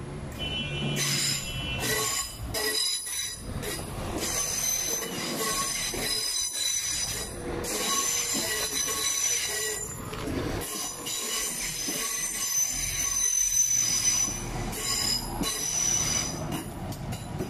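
Southern Class 171 Turbostar diesel multiple unit running past along the platform, its wheels squealing in several high steady tones over the rumble of the carriages.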